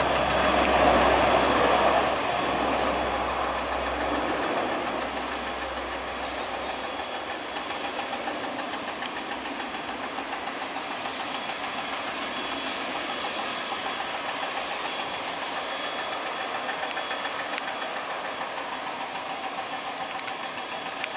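Antonov An-12BK's four Ivchenko AI-20 turboprop engines at takeoff power during the takeoff roll. A loud drone fades over the first several seconds as the aircraft moves away, then settles into a fainter, steady drone with a fast even pulsing.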